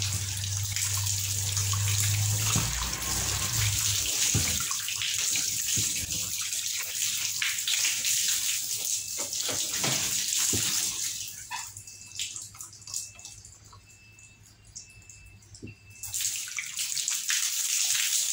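Water running from a hose as machine parts and containers are rinsed in a plastic basin. The flow stops for a few seconds past the middle and starts again near the end.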